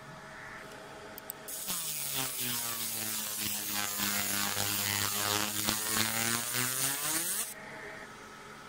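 A 50 W fiber laser marking machine making a marking pass on a brass plate: a loud hiss with a steady pitched buzz over it, starting suddenly and cutting off suddenly after about six seconds when the pass ends.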